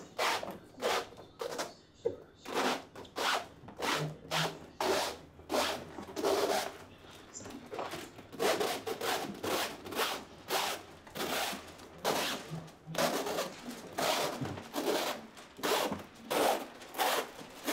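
8-mil security window film rustling and rubbing as it is unrolled down wet glass and pressed on by hand, in quick repeated swishes.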